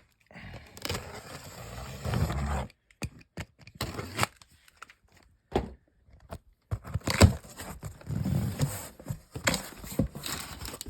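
Cardboard shipping box being torn open by hand: scraping and tearing in two longer bursts, with scattered sharp knocks and clicks between them.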